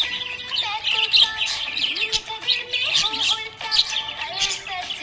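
Budgerigars chirping and warbling without a break: quick, twittering notes that change pitch rapidly and overlap one another.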